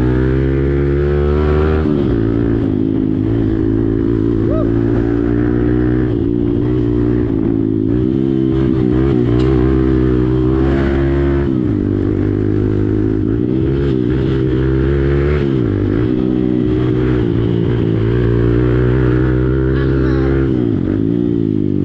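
Hero Xpulse motorcycle's single-cylinder engine running through an aftermarket Akrapovič exhaust, its note rising and falling repeatedly as the throttle opens and closes.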